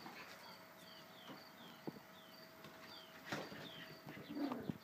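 Cavalier King Charles spaniel puppies scampering and tussling, their paws scuffling and knocking on the floor, louder a little after the middle and near the end. A bird chirps a short falling note over and over in the background.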